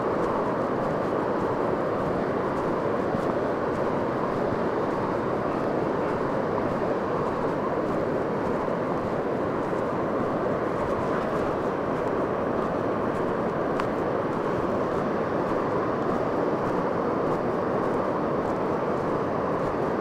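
Steady, unbroken roar of ocean surf along a sandy beach.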